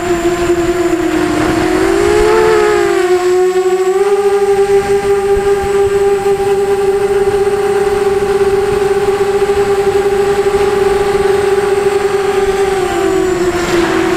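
The brushless motors and 5045 bull-nose props of a 250-size FPV quadcopter whine in flight, heard from on board over a low rush of wind. The pitch swells and falls about two seconds in, settles slightly higher from about four seconds, and dips near the end as the throttle changes.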